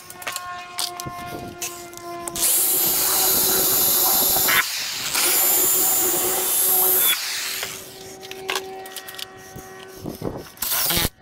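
Power drill boring into a wooden beam: two runs of about two seconds each with a short break between, then a brief burst near the end.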